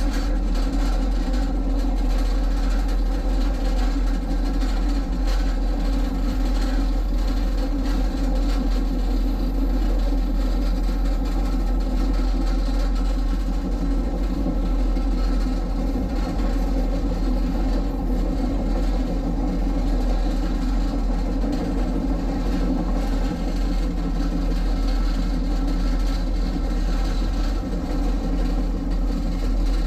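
Moving train running steadily along the track, with a constant engine drone and a low rumble.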